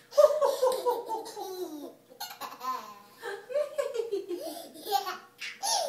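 Hearty laughter from a small child, with an adult laughing along, in two long peals that fall in pitch.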